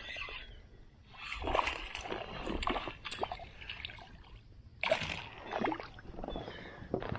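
Water sloshing and splashing around a kayak in irregular bursts, several in a few seconds.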